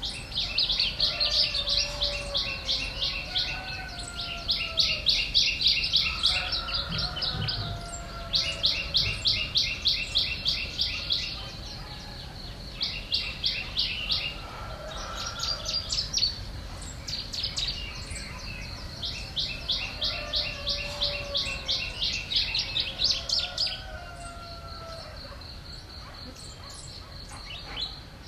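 Songbirds calling: one bird gives rapid trills of high notes, about eight a second, in repeated bursts of two to four seconds. Softer, lower, sliding calls from other birds come in between.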